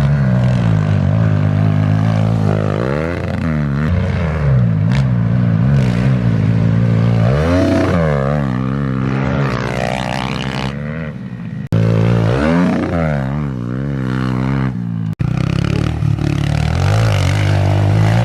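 Pit bike engine with an aftermarket full-size exhaust, revving up and dropping back again and again while being ridden. The sound breaks off abruptly and restarts twice, about two-thirds of the way in and again a few seconds later.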